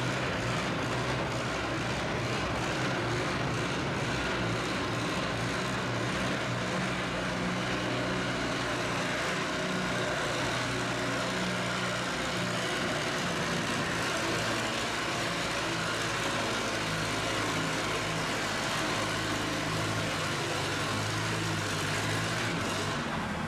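Vintage farm tractor's engine running steadily under heavy load as it pulls a weight-transfer sled along a dirt track, holding a nearly even pitch.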